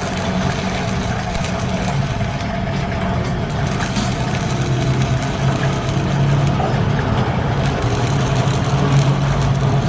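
An engine running steadily at idle, its low hum drifting slightly in pitch, with a few faint clicks over it.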